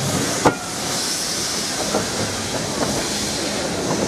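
SECR C class steam locomotive No. 592 shunting, with a steady hiss of escaping steam. A sharp knock comes about half a second in, followed by a few lighter knocks.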